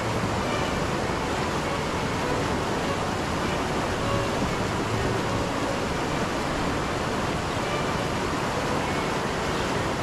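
Steady rushing of a river running over rocky rapids, an even hiss with no breaks.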